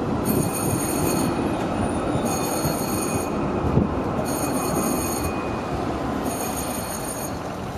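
Articulated coastal light-rail tram rolling past close by with a steady low rumble of wheels on rail. A repeating high ringing warning tone sounds over it, each ring about a second long with a second's gap between, four times.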